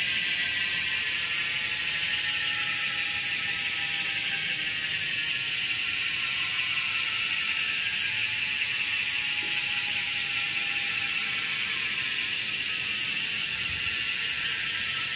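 Freehub of a road bike's spinning rear wheel buzzing as the wheel freewheels, a fast, even ratcheting whir from the pawls that very slowly falls in pitch as the wheel coasts down.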